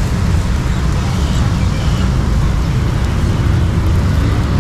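Steady low rumble of road traffic with a background hiss.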